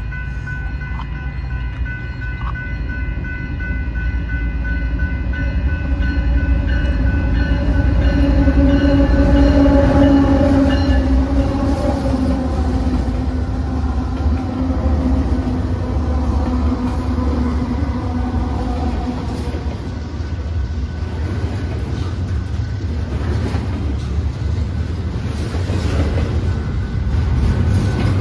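A Union Pacific freight train led by GE AC45CCTE (ET44AC) locomotives passes a grade crossing while the crossing bell rings steadily. The locomotive horn swells as the lead units near and falls in pitch as they go by, and then the rumble and clatter of double-stack well cars rolling over the rails takes over.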